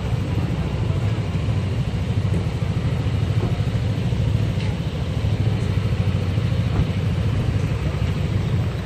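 Yamaha Aerox scooter's single-cylinder engine idling steadily with a low, even rumble.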